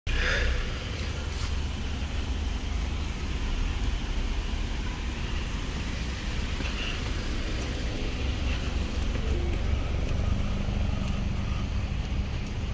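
Outdoor traffic noise: cars moving slowly around a parking lot over a steady low rumble.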